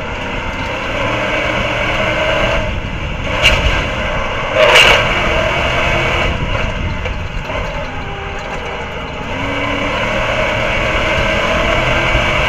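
Stadium Super Truck racing engine running hard, its pitch rising and falling through the gears, under road and wind noise. Two sharp bangs come about three and a half seconds in and a second later, the second the loudest sound.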